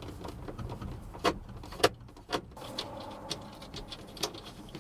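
Hand screwdriver working screws out of a truck's plastic instrument cluster bezel: scattered clicks and taps of metal on screws and brittle old plastic, with a few sharper knocks.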